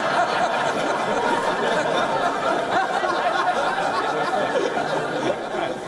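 A crowded chamber of MPs laughing together, with murmured chatter, in reaction to a joke. The laughter eases off slightly toward the end.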